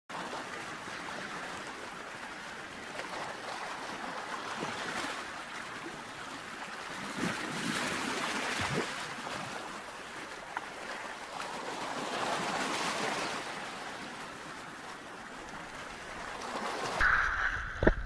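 Sea waves breaking and washing up over a pebble beach, a steady surf hiss that swells twice as bigger waves come in. About a second before the end it cuts abruptly to a louder low rumble.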